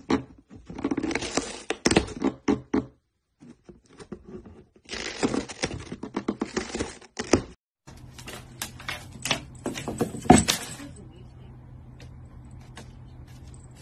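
Close crunching and crackling in two spells, as a cat eats from a cardboard box. Then a low steady hum with scattered light taps and one sharp knock about ten seconds in.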